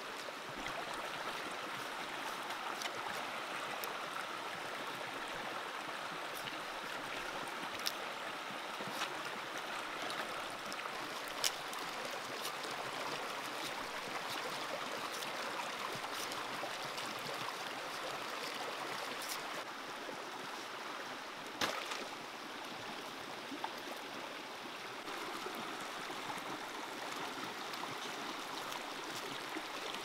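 A shallow stream running steadily over rocks, an even rushing of water. About six short sharp clicks stand out at scattered moments.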